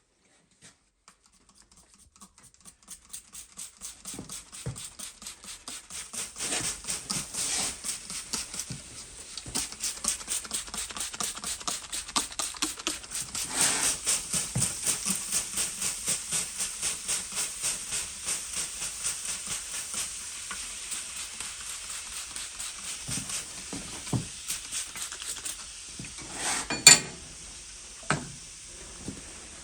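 Welding arc sizzling in a steady stop-start rhythm of about two pulses a second. Near the end there is one sharp loud clank and a few lighter knocks.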